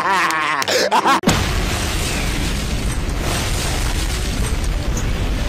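Men laughing, cut off about a second in by a sudden loud boom sound effect, which leaves a long low rumble that carries on.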